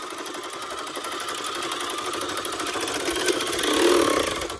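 Electric drill's motor whirring steadily under load as it drives a motorcycle in place of the engine. It grows louder toward the end, then cuts off suddenly.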